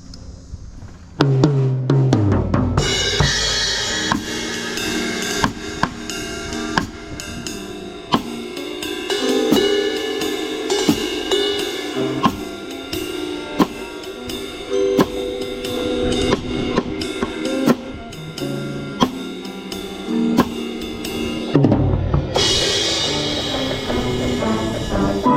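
Marching band playing, led by a drum set close to the microphone: kick drum, snare and cymbal hits over sustained band chords. The band comes in loudly about a second in, and a cymbal swell rises near the end.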